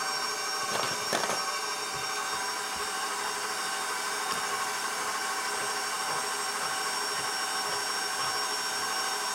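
Electric bowl-lift stand mixer running steadily, its motor giving a constant whine as it beats cake batter. A couple of faint clicks come about a second in.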